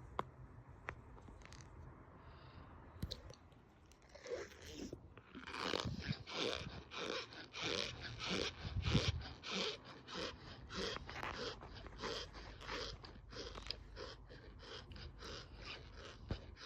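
Cornstarch powder crunching as it is pressed: a few faint clicks, then from about four seconds in a steady run of short crunches at about two a second.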